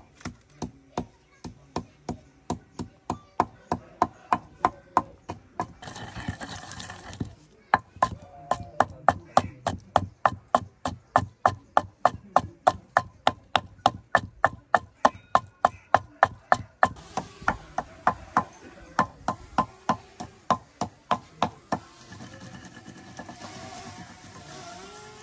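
Long wooden pestle pounding green chillies in a mortar: steady, heavy strokes at about two to three a second, with a brief pause about six seconds in.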